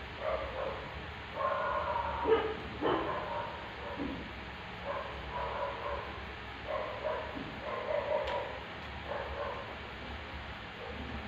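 An animal's short, high-pitched cries, repeated over and over in short bursts, with a sharper, louder one between two and three seconds in.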